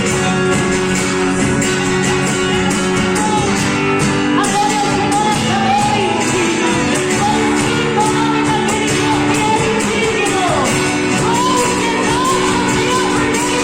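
Live worship band playing a Portuguese gospel song, with a lead voice singing a wavering melody over sustained chords and a steady beat.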